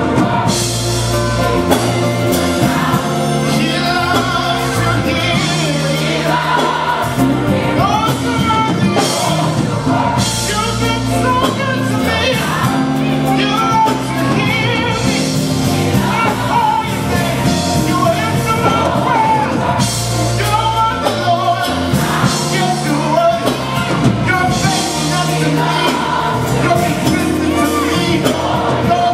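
Gospel song playing loud: lead singer with choir over a driving band with bass and drums.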